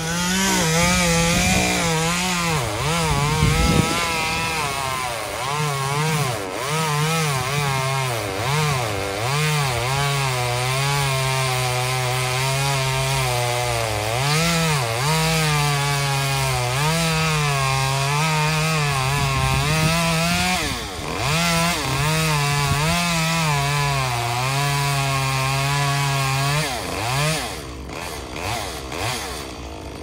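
Two-stroke chainsaw cutting pecan wood at high revs. Its engine pitch sags and recovers again and again as the chain works through the cut. Near the end it comes off the throttle and the engine note falls away.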